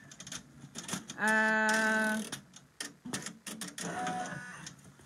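Brother multi-needle embroidery machine stitching, with irregular sharp ticks and clicks from the needle and mechanism. About a second in, a loud steady humming tone is held at one pitch for about a second, and a fainter short tone comes near the end.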